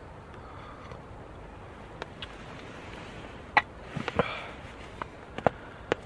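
Coffee being sipped from a steel camping mug, with a few small clicks and knocks as the mug is handled and a short breathy sound about four seconds in, over a steady faint hiss.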